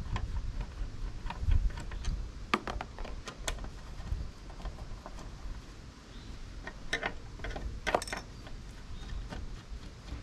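Small metal clicks, taps and rattles of Phillips screws being taken out of an antenna bezel on a truck's cowl and handled, with a few louder clicks spread through.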